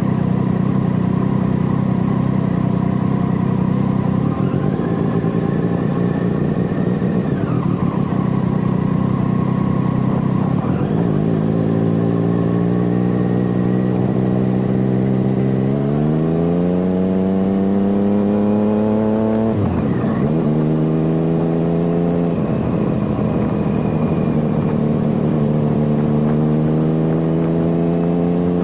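Motorcycle engine heard on board while lapping, held at high revs at first, then pulling hard with the pitch climbing steadily for several seconds. It drops sharply once at a gear change just past the middle and climbs again near the end.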